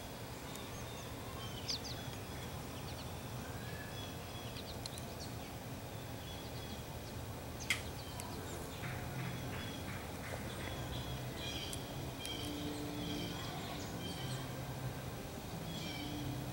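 Birds chirping and calling outdoors in short, repeated high chirps, with one sharp click about halfway through.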